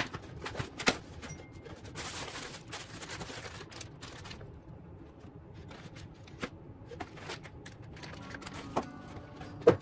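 Unboxing by hand: cardboard box flaps and plastic packaging bags crinkling and being handled, with scattered clicks and taps and a louder tap near the end.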